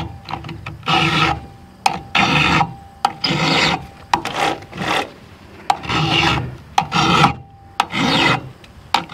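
Husqvarna flat file taking the rakers (depth gauges) of a chainsaw chain down, one short rasping push-stroke per raker. The strokes come roughly one a second, each about half a second long, with light clicks between them as the file is set onto the next raker.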